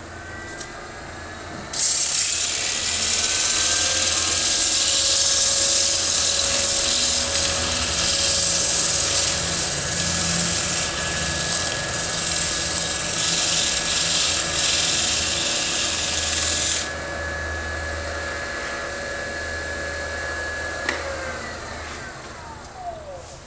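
Wood lathe motor whining steadily with a bowl spinning on it, and sandpaper hissing loudly against the turning wood from about two seconds in until about seventeen seconds. The hiss then stops, leaving the motor alone, which winds down with a falling whine near the end.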